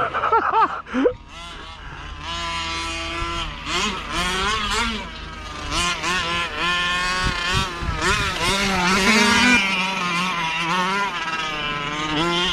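Small two-stroke petrol engine of a 1/5-scale RC car running through its tinny stock exhaust, revving up and down with the throttle as it is driven, with quick rev swoops in the first second.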